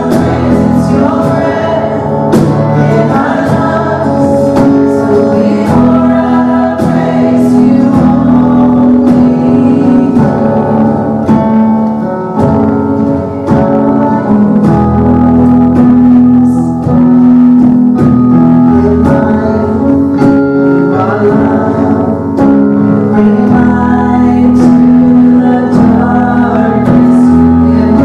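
Live worship band playing and singing: strummed acoustic guitar and keyboard under singing voices.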